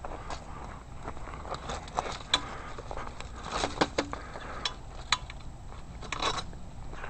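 Irregular crunching and crackling steps on icy, crusted snow, with a few sharper cracks in the middle.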